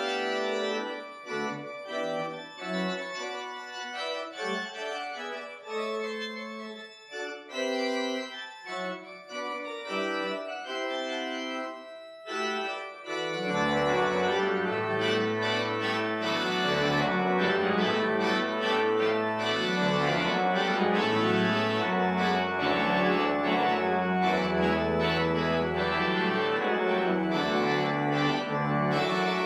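1979 Austin pipe organ playing a piece: a lighter passage of separate, detached notes, then about 13 seconds in the full organ comes in louder, with deep pedal bass notes underneath.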